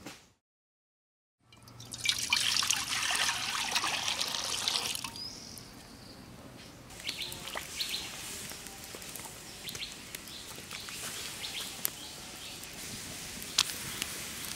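Water poured into an iron kadai, a loud rush lasting about three seconds, followed by quieter water sounds and scattered small clicks and splashes as raw chicken pieces go into the pan.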